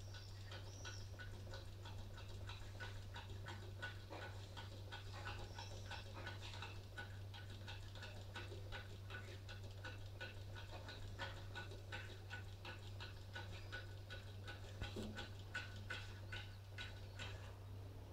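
Dog scratching and pawing at a glass balcony door with its claws: a rapid, irregular run of short clicking scratches that stops near the end, over a steady low hum.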